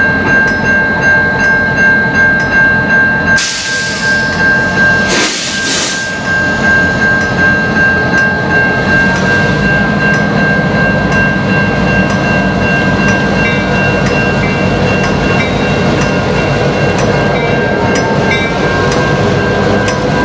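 Diesel freight locomotives running slowly up to and past a grade crossing, drawing alongside near the end, while the crossing bell rings steadily. Two brief hisses come at about three and a half and five seconds in.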